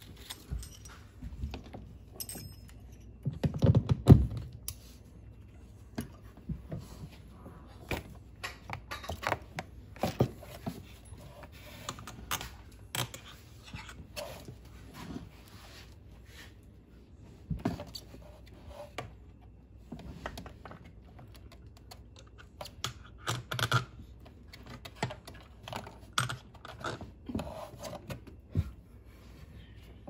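Metal mounting hardware being handled: scattered clicks and clinks of bolts, washers and a metal plate on a boat deck, with a louder knocking about four seconds in.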